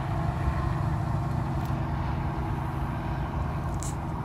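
Steady low engine drone with a couple of faint ticks.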